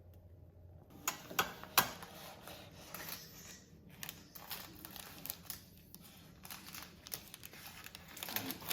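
Paper or plastic packaging crinkling and rustling as it is handled and opened, with several sharp clicks about a second in.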